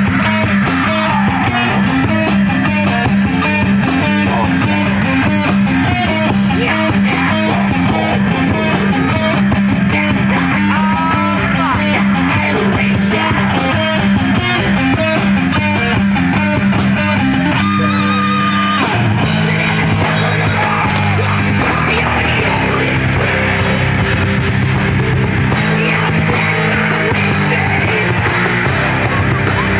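Live heavy metal band playing: distorted electric guitar riffing over bass and drums in a fast, even picked pattern. About two-thirds through the riff breaks off on a held note and a heavier, lower riff starts.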